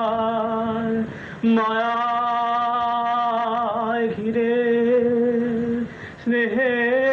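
A solo voice singing long, drawn-out notes with a slight waver, opening a song, with no clear words. The notes break off briefly about a second in and again near the six-second mark.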